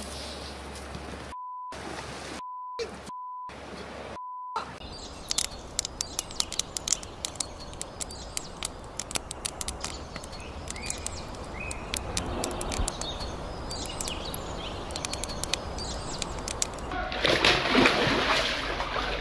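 Four short censor bleeps at one steady pitch, with the sound cut out between them. Then a burning grass fire crackling with many sharp pops, followed by a louder stretch of noise near the end.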